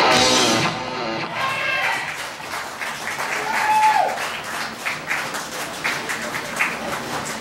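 A live rock band's final chord on electric guitars and drums rings out and fades, and a small crowd claps and cheers.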